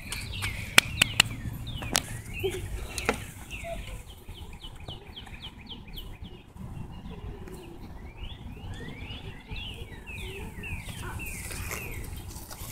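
Wild birds chirping and calling, with short sweeping notes throughout and a quick run of evenly spaced chirps in the middle. A few sharp clicks come in the first three seconds, over a low rumble.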